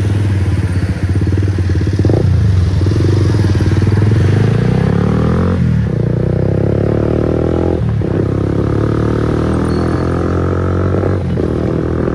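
Bajaj Pulsar NS160's single-cylinder engine running loud through an aftermarket Akrapovic GP full-system exhaust while riding, pulling up through the gears. The pitch climbs as it accelerates and drops off briefly four times at the gear changes.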